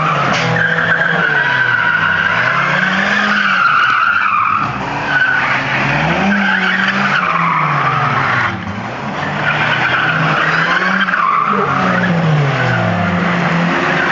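Car engines revving up and down over and over while tyres squeal and skid on asphalt as old cars are driven hard around the lot.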